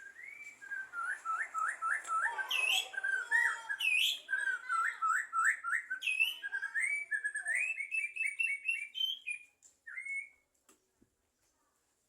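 Javan myna singing a long run of rapid whistled notes, with a few sharper swooping whistles among them; it falls quiet about ten seconds in.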